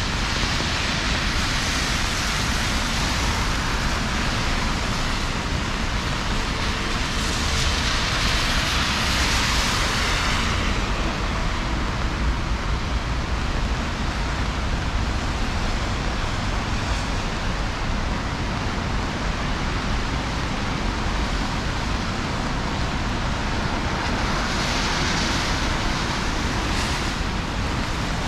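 Heavy rain falling steadily, with the hiss of car tyres on a wet road swelling three times as vehicles pass.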